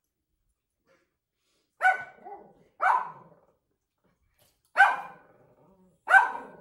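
A dog barking four times, single barks at uneven gaps of one to two seconds.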